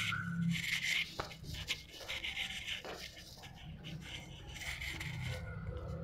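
Handling noise: rubbing and rustling with a few light clicks as the camera is moved and the air conditioner's plastic remote control is picked up.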